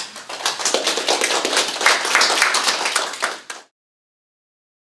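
A small classroom audience of students applauding, many quick hand claps; the applause cuts off suddenly about three and a half seconds in.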